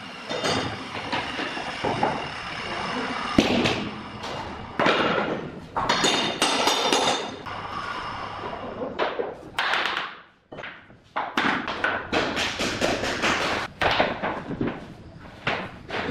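Floor planks being laid and knocked together on underlay: irregular knocks, thumps and clatter of the boards as they are set and seated into one another.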